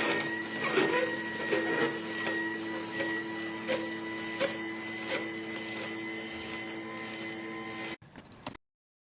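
Slow masticating juicer's electric motor running with a steady hum, a regular click about every 0.7 s, stopping abruptly about eight seconds in.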